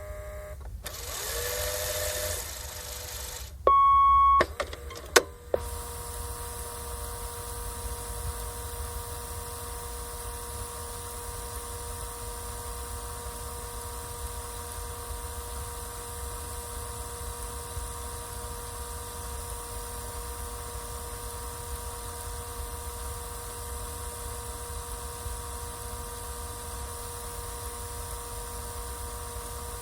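Cassette tape answering machine mechanism: a couple of seconds of tape-motor whir, then one loud steady beep about four seconds in and a click from the mechanism, after which the tape runs on with a steady motor hum and hiss.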